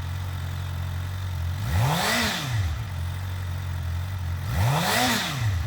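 2012 Suzuki GSX-R 750's fuel-injected, liquid-cooled inline-four idling, with two quick throttle blips about two and five seconds in, each rising and falling back to idle.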